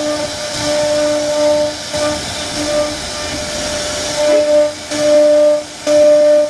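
CNC router spindle running with a steady whine while its bit carves into a wooden panel, over a hiss of cutting. In the last couple of seconds the whine breaks off and comes back several times.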